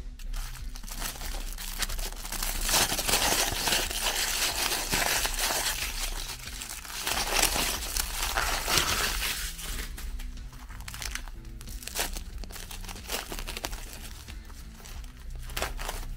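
Aluminium foil crinkling and tearing as hands unwrap it, loudest in the first ten seconds or so, then quieter rustling of plastic cling film being peeled off near the end. Background music plays underneath.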